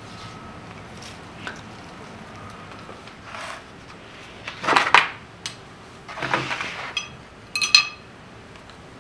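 Grocery packages and plastic food trays rustling and clattering as they are handled and set down, then chopsticks clinking against a ceramic plate, with a brief ringing, near the end.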